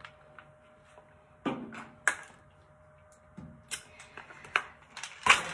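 Plastic supplement bottles being handled, swapped and set down: a handful of short knocks and clicks, the loudest near the end.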